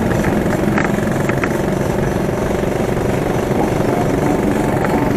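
Small engine of a buggy running steadily while driving along a road.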